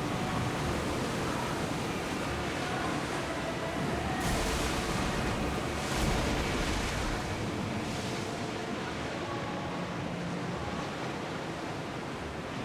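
Sea waves washing and surging, swelling louder every couple of seconds, over a low rumble.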